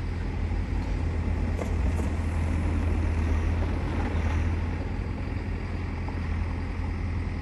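A car driving past close by on an unpaved dirt road, over a steady low rumble of street ambience.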